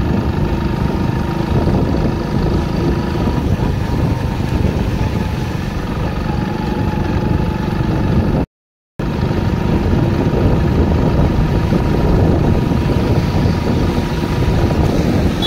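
Steady running noise of a motorcycle being ridden along a wet road: engine, tyre and rushing-air noise blended into a constant rumble. It cuts out completely for about half a second a little past halfway.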